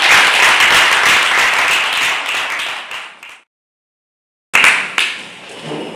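Audience applauding, dense and loud, cut off abruptly about three and a half seconds in. After a second of dead silence, the clapping comes back suddenly and fades.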